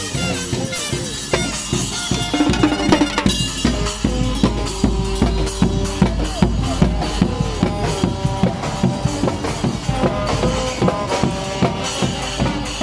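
A Guggenmusik carnival band playing live: brass including a sousaphone over a bass drum, snare and cymbals, with a steady beat and sliding, wavering horn notes.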